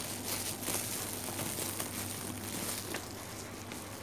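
Rustling and crinkling noise close to the microphone, in many short scrapes that ease off about three seconds in, over a steady low hum.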